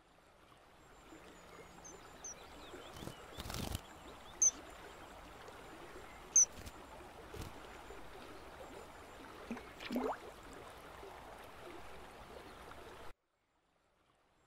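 Riverside ambience: a steady hiss of flowing water with a few short, shrill bird calls, two of them standing out sharply, and some knocks. It cuts off suddenly about a second before the end.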